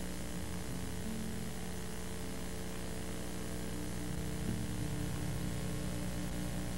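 Steady low electronic drone under a bed of hiss, its low held tones shifting slightly about a second in and again past four seconds.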